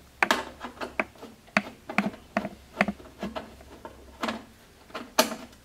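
Screwdriver clicking and scraping against the small screws and sheet-metal access cover of an electric water heater as the screws are backed out: about a dozen light, irregular metal clicks, the loudest near the end.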